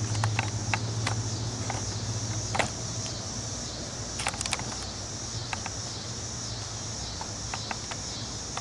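Evening insects, crickets, chirring steadily over a low hum that is strongest in the first few seconds and then eases off, with scattered light clicks.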